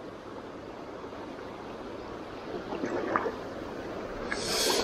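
Steady rush of river current, with a few faint taps about three seconds in and a brief louder hiss just before the end.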